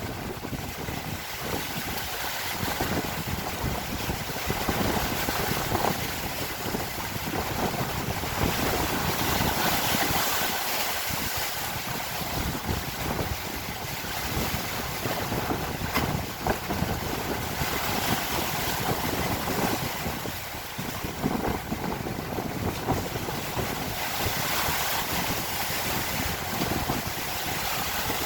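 Strong wind buffeting the microphone in gusts, with waves washing.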